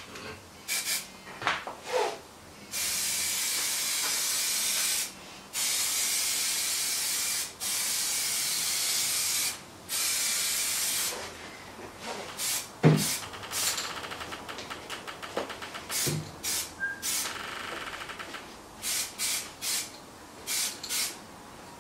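Aerosol can of black Plasti Dip spraying, laying a light, dusty first coat: four long hisses of about two seconds each, then a run of short, quick spurts.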